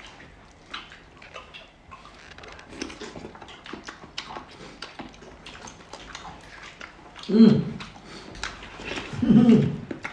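Close-up chewing and lip-smacking of someone eating braised pig's head, with a run of small wet clicks. Two short voiced sounds stand out, about seven and nine seconds in.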